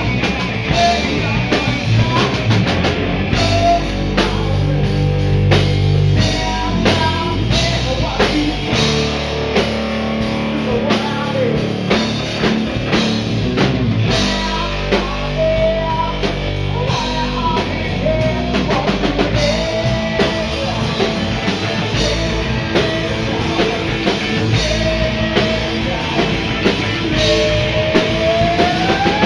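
Rock band playing: distorted electric guitars, bass guitar and a drum kit keeping a steady beat, with a male voice singing. Near the end a note slides upward in pitch.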